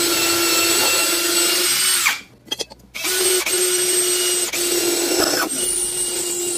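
Maxsell 20 V cordless drill set to drill mode, running steadily as it bores into a wooden board, stopping about two seconds in. It starts again about a second later to drill into a steel square tube, with slight dips in pitch as the bit bites.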